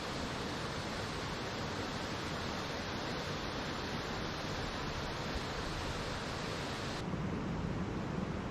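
Steady rush of flowing water. About seven seconds in it turns suddenly duller and deeper.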